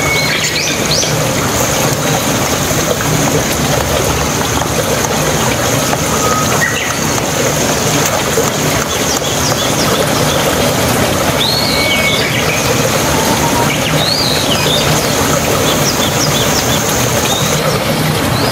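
Tomato-and-cumin masala sizzling steadily in oil in a nonstick frying pan, with a few short bird chirps behind it. A thin, high, steady tone runs through most of it and stops shortly before the end.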